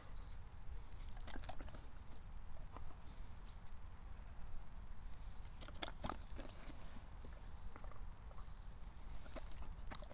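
Dog chewing a treat just taken from the hand: scattered wet mouth clicks and smacks. Wind rumbles on the microphone, with a few faint bird chirps.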